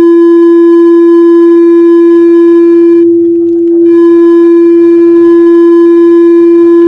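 A loud, steady tone held at one unchanging pitch, with a row of overtones above it. About three seconds in, the higher overtones drop away for about a second while the main tone carries on.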